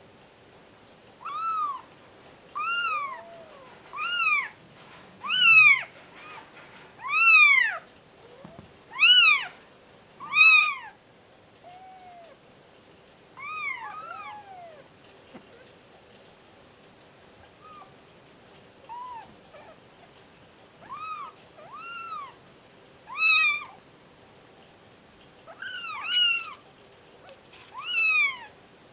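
Two-week-old Bengal kittens mewing: a string of short, high-pitched mews, each rising and then falling in pitch, one every second or two, with a brief lull about halfway through.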